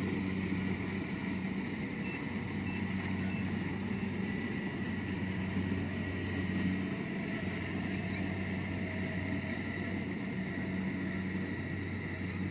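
Kubota rice combine harvester's diesel engine running steadily while it cuts and threshes, a low hum with a thin steady whine above it.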